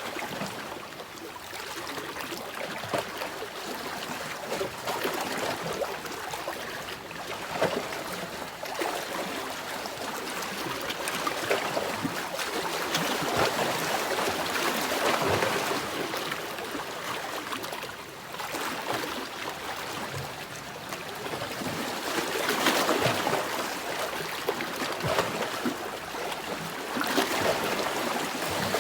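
Small waves washing in on a shore, a steady splashing hiss that swells and eases every few seconds.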